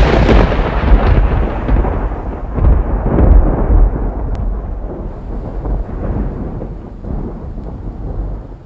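Rolling thunder over rain: a loud, deep rumble with a couple of fresh swells in the first few seconds, then fading away gradually.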